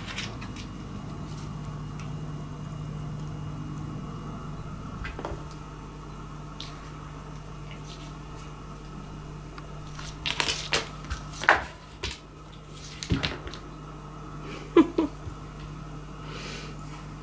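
Cat playing with a cotton swab on a wooden floor: a few scattered knocks and scuffs of its paws and body on the floorboards, bunched together about ten to fifteen seconds in, over a steady low hum.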